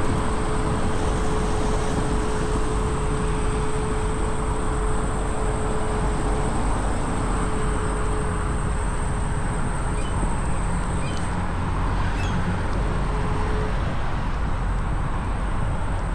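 Electric scooter riding along a paved path: steady wind and road rumble on a chest-mounted camera's microphone, with a steady whine from the scooter's motor that drops out for a couple of seconds near the end. A few faint bird chirps about two-thirds of the way through.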